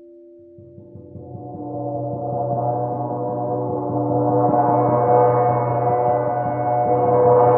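A gong played with a soft mallet in a rapid roll, coming in about half a second in and swelling steadily louder as its many overtones build up. A few steady pure tones stop just as it begins.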